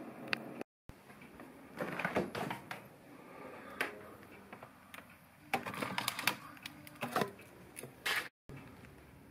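Rummaging in a freezer: plastic drawer and frozen packets knocking, clicking and rustling in scattered short bursts.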